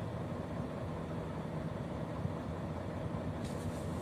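Volvo 460 truck's diesel engine idling, a steady low rumble heard inside the cab.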